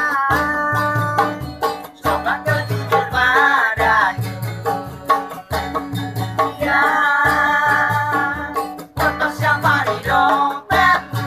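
Street band playing: acoustic guitars strummed while a homemade drum of plastic pipes is hand-beaten in a steady rhythm, with a man singing long held notes over it.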